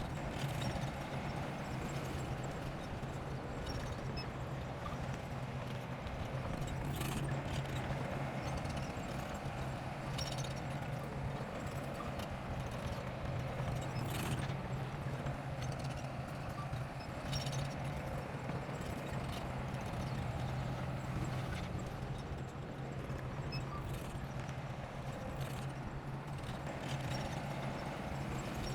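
Diesel engine of heavy earthmoving equipment running steadily with a rapid, even knocking pulse, broken now and then by a sharp clank.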